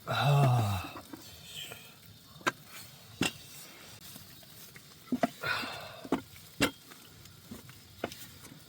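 A short wordless vocal sound falling in pitch, then a few scattered, sharp light clicks and knocks, spaced irregularly.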